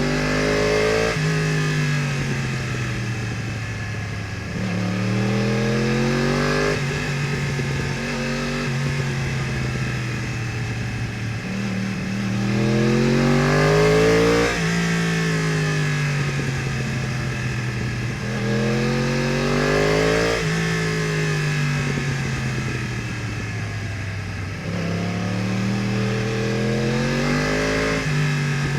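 2015 Yamaha R1's crossplane inline-four through an Akrapovič exhaust, pulling hard under throttle and backing off, several times over: the engine's pitch climbs, then falls away, with sudden jumps where the throttle or gear changes.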